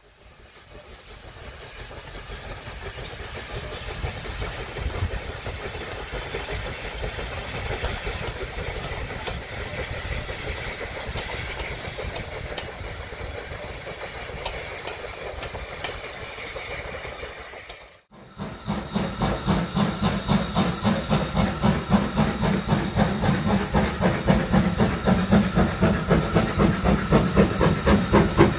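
Recorded real steam train: a steady rushing hiss and rumble of a passing train fades in and stops abruptly about 18 seconds in. Then a steam locomotive's rapid, even exhaust beats come in and grow louder as it approaches.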